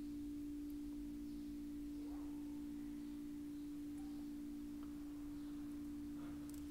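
Faint, steady pure tone with a weaker, slightly lower tone beneath it, held without change: the metal rods of the LAMBDOMA sound sculpture ringing on as the last note of the music.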